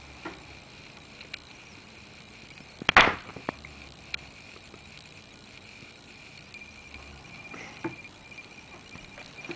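Faint rustling and handling noise close to the microphone over a thin steady high whine, with one sharp, loud noise about three seconds in and a smaller one near the end.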